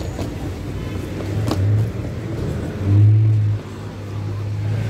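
Road traffic on a city street: a motor vehicle's engine drone swelling as it passes close by, loudest about three seconds in.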